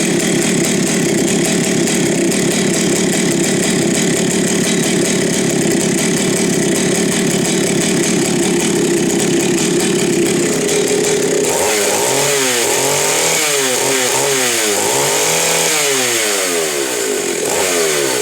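Vintage Jonsered 80 two-stroke chainsaw engine running steadily, then from about halfway being revved up and down over and over, the pitch rising and falling about once a second.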